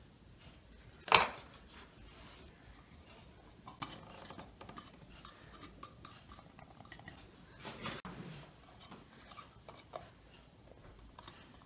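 Kitchen utensils being handled while puff pastry is cut and shaped: one sharp clink about a second in, then faint, scattered taps and light scrapes.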